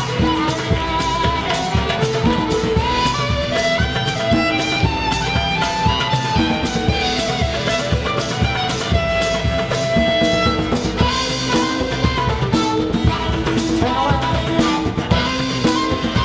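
Live contra dance band playing an instrumental tune: fiddle melody over strummed acoustic guitar and a drum kit keeping a steady beat.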